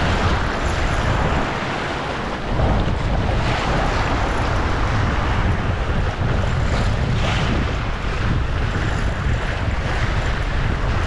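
Steady rushing noise of wind buffeting the microphone, over the wash of sea water around a boat, with a deep rumble underneath.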